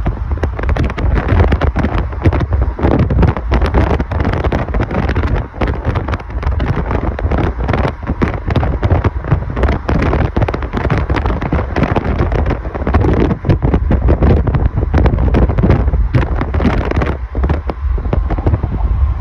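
Wind buffeting the phone's microphone from a car travelling at highway speed, a loud gusty rumble with road and tyre noise underneath.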